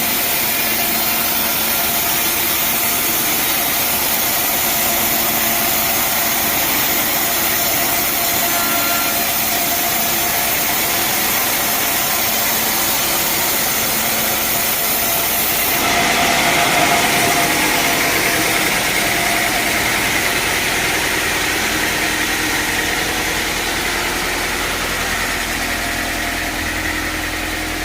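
Engine-driven sawmill running steadily, a constant mechanical drone with a dense high hiss. The sound changes abruptly about sixteen seconds in, and a low hum comes up near the end.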